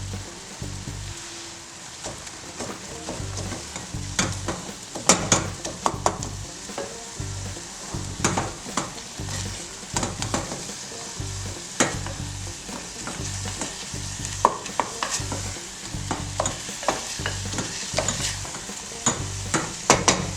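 Meat and spices sizzling in a hot pan while a utensil stirs them, with irregular clicks and scrapes against the pan.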